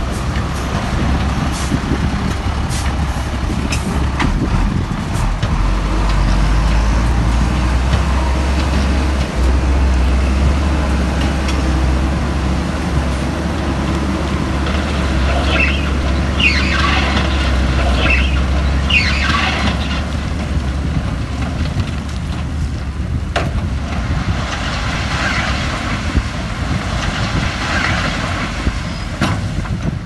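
Heavy diesel earthmoving machinery running with a steady low engine drone, and several high squeals about halfway through.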